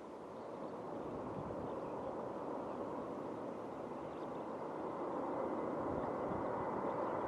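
Jet airliner engines: a steady rushing noise that slowly grows louder, with a faint high engine whine coming in during the second half.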